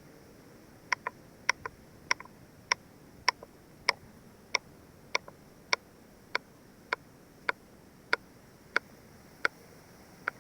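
Sharp, ringing taps repeated at an even pace, about one every 0.6 seconds and now and then doubled, starting about a second in.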